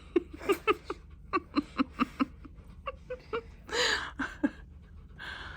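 A person laughing in a quick run of short bursts, then a louder breathy burst about four seconds in.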